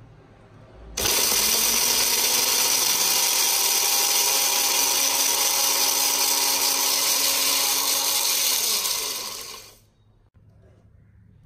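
Personal bullet blender's motor running at full speed, chopping dried red chilies into flakes. It starts suddenly about a second in, runs steadily, and winds down with a falling pitch near the end.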